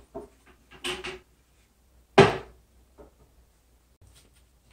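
Faint handling clicks and one sharp knock about two seconds in, while wetted rubber grommets are pressed into the seat-bolt holes of a ceramic toilet bowl.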